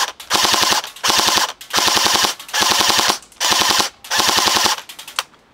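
E&L AKM airsoft electric gun firing on full automatic in about six short bursts of roughly half a second each, each a rapid string of shots from the gearbox cycling, ending with a few single clicks near the end.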